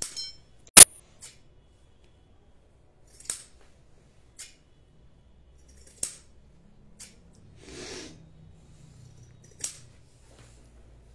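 A handful of separate sharp clicks and taps, the first about a second in by far the loudest, with a short rustle about eight seconds in.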